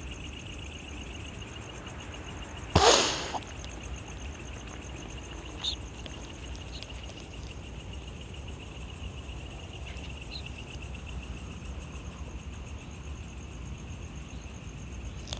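Night insects trilling steadily, a continuous fast-pulsing high chirr. About three seconds in, a brief loud burst of noise stands out above it.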